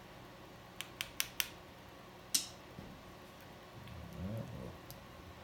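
Small steel parts of an AR-15 bolt clicking as they are handled and a small pin is worked into the bolt. Four quick sharp clicks come about a second in, then a single louder click with a short ring. A brief low hum follows near the end.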